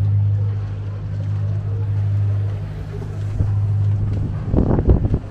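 High-speed passenger ferry's engines running with a steady low hum, and a short cluster of thumps about four and a half seconds in.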